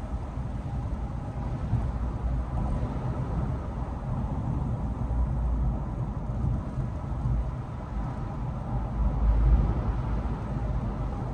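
Steady road and engine noise of a moving car heard from inside the cabin, a low rumble that swells briefly near the end.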